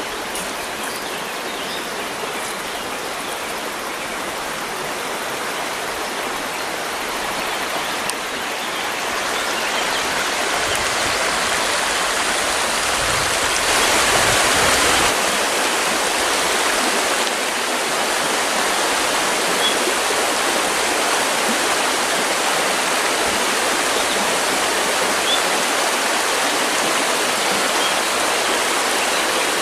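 River water rushing steadily, growing louder about a third of the way in and loudest around the middle.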